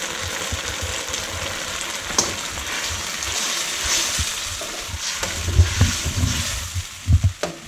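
Sweet and sour sauce bubbling and sizzling in a wok while a metal spoon stirs it, with a few sharp clicks of the spoon against the pan.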